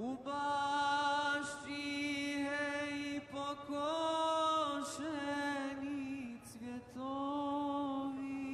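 Solo male voice chanting in long, held notes with small turns in pitch, breaking off briefly three times.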